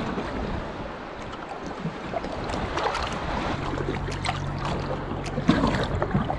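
Choppy water lapping and splashing against a jet ski's hull, with wind noise on the microphone. A low steady hum comes in about halfway through.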